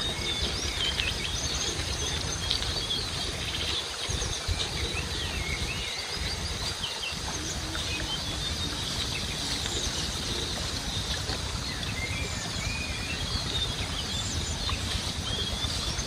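Many small birds chirping and calling, short high chirps and brief rising and falling whistles one after another, over a steady low rumble.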